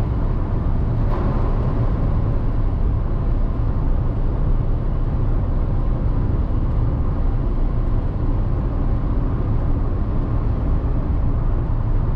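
Car driving at steady highway speed: an even, unbroken rumble of engine and tyres on the road.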